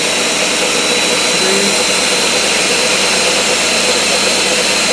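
Ninja BL660 Professional 1100-watt blender running with an empty pitcher, a loud, steady whirring rush of motor and spinning blades with a high steady whine.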